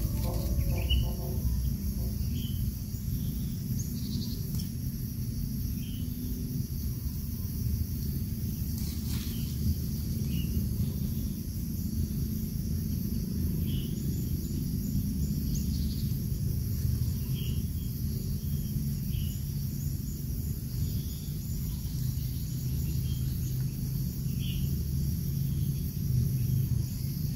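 Outdoor ambience by a grass nest: a steady low rumble with a thin high insect hum and short bird chirps scattered every second or two. Background music fades out about a second in.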